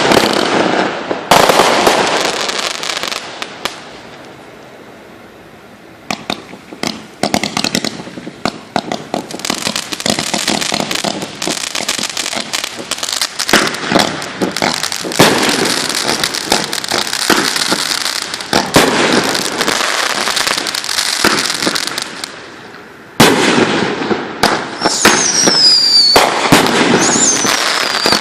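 Consumer fireworks going off: a loud burst at the start, then a long run of dense crackling. Another sudden loud bang comes about 23 seconds in, followed near the end by several short whistles falling in pitch.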